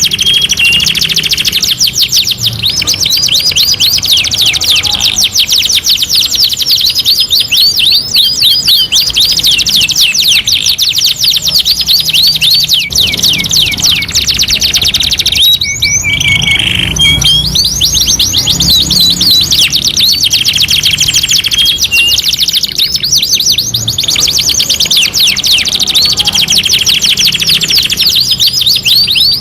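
Domestic canaries singing without a break: long rolls and trills of rapid, repeated sweeping notes, with a short lower, steadier note about halfway through.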